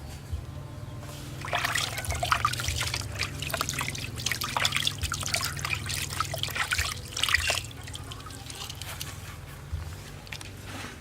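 Water trickling and splashing for about six seconds, then dying down to a fainter dribble.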